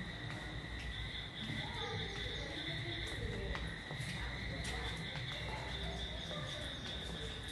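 Insects droning in a steady, unbroken high tone, with low rumble underneath.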